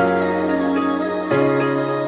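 Music of sustained chords, the chord changing at the start and again about a second and a bit in.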